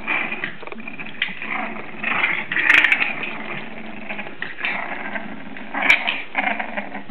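English bulldog puppies snuffling and grunting in irregular breathy bursts, with two sharp clicks, one about three seconds in and one near six seconds.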